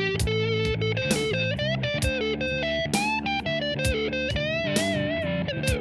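Electric guitar music: plucked notes, some bent and wavering, over held low notes.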